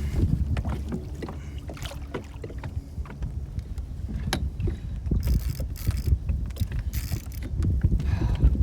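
Wind rumbling on the microphone, with scattered knocks and clicks against the kayak as the angler fights a fish, and a few short hissy bursts in the second half.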